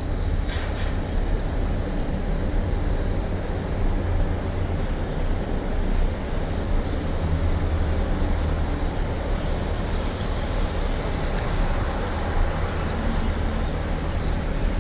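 Steady low hum and even noise of running machinery, with one short click about half a second in.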